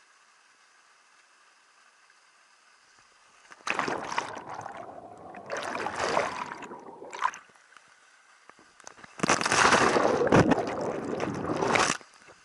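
Water splashing and sloshing in two loud bursts, one about four seconds in lasting some three seconds and a longer one starting about nine seconds in.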